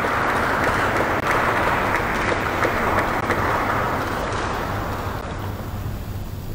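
Seated audience applauding steadily, dying down near the end.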